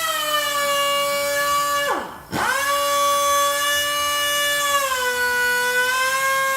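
Cut-off tool running with a steady high whine. It coasts down and stops about two seconds in, then spins straight back up and runs on, its pitch dipping slightly near five seconds. The owner says the tool has no power even after being rebuilt.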